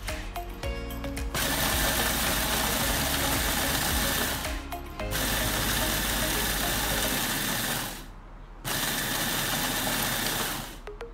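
Food processor motor running in three pulses of a few seconds each, with short pauses between them, as it grinds graham crackers, biscuits and almond flakes into crumbs.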